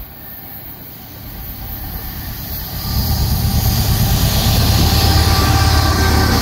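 Norfolk Southern diesel freight locomotives approaching and passing close by: their engine rumble grows from faint to loud, getting much louder about three seconds in as the lead units draw near.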